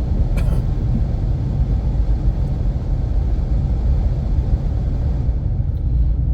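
Infiniti Q50 Red Sport 400 driving, a steady low rumble of road and engine noise, with a brief click about half a second in.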